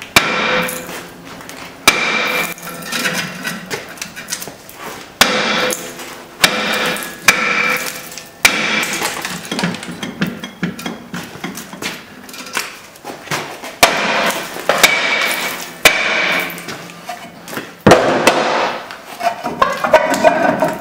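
Large hammer striking a rusted 11-inch cast-iron rear brake drum to break it loose from the hub, about a dozen blows at uneven intervals, each leaving the drum ringing. The blows come quicker near the end as the drum frees.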